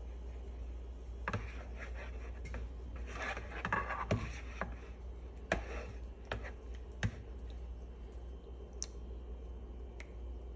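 Light scattered clicks and scrapes of metal tongs against a plastic mixing bowl as a slice of bread is pressed and turned in batter, over a steady low hum.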